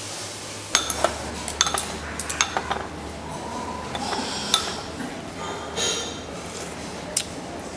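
Scattered sharp clinks and clatters, a dozen or so, over a steady low hum in an airliner cabin during boarding, with faint voices in the background.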